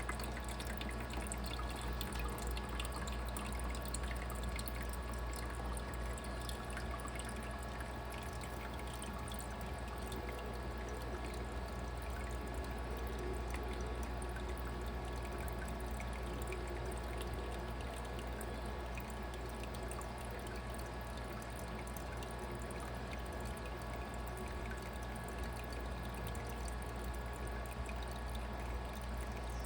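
Igloo countertop ice maker running, with water trickling and pouring steadily over a constant low hum: the repaired water pump is lifting water up to the ice tray again.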